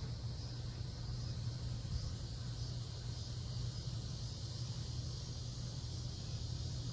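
Steady high-pitched chorus of insects calling in the surrounding trees and grass, over a low steady hum.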